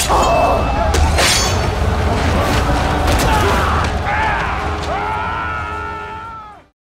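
Film battle soundtrack with music: crashing impacts over a low rumble, then drawn-out gliding tones, fading out and cutting to silence near the end.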